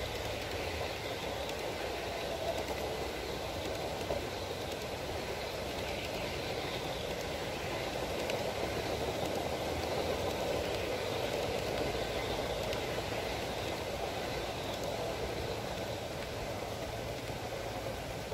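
G-scale model intermodal train of double-stack container well cars rolling past on garden track: the steady running noise of its wheels on the rails.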